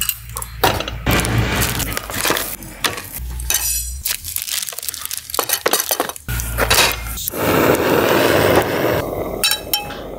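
Clicks, knocks and metal clinks as a single-burner camping gas stove is fitted to a cassette gas canister and aluminium camp cookware is handled. Partway through, a steady hiss lasts a couple of seconds, the gas burner running, and a few ringing clinks come near the end.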